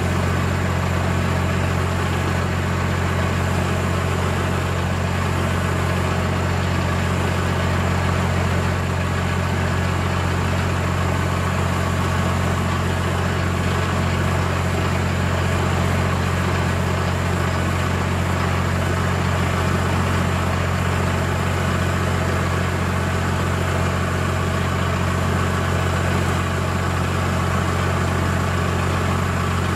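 Tractor engine idling steadily, with a constant low drone and no change in speed.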